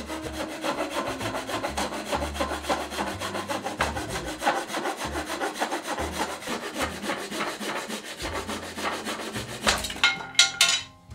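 Japanese pull saw cutting a taper lengthwise along a cherry desk leg, in quick, steady rasping strokes. A few sharper, louder strokes ring out near the end as the cut runs out.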